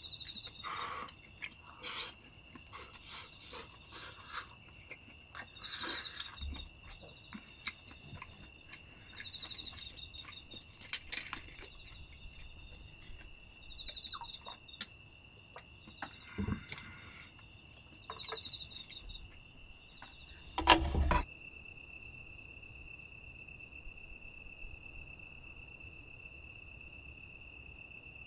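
Crickets chirping: a steady high trill with rhythmic pulsed chirps over it. For the first two-thirds, close eating sounds lie over them: a spoon scraping and tapping a bowl of rice, light clicks and knocks, and a loud knock about 21 seconds in. After that only the insects are heard.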